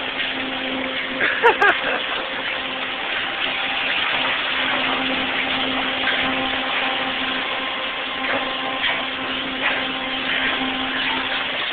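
Automatic carwash running: water spraying and rotating brushes working over a pickup truck, under a steady machine hum. A brief voice cuts in about a second and a half in.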